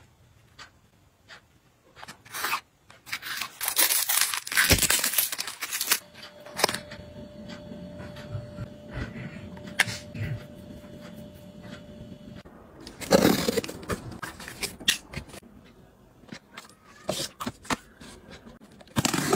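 Cosmetics packaging being handled and unwrapped: plastic wrap and cardboard rustling and tearing, with scattered small clicks and taps. There are longer runs of rustling about a quarter of the way in and again past the middle.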